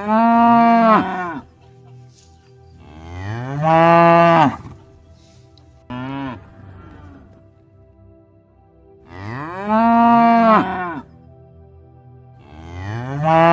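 Cattle mooing: four long calls and one short one, a few seconds apart, each rising and then falling in pitch.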